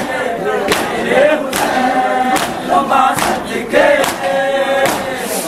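Crowd of men chanting in unison, with sharp group hand strikes keeping an even beat about every 0.8 seconds.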